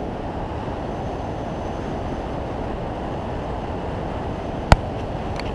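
Steady rush of wind and water noise from a fishing boat running under way, with wind buffeting the microphone. One sharp click about four and a half seconds in.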